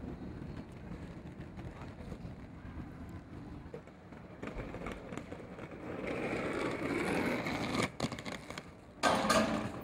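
Inline skate wheels rolling on a concrete sidewalk: a rushing roll that grows louder for about three seconds and cuts off abruptly, followed by a short loud noise burst near the end, over low outdoor street rumble.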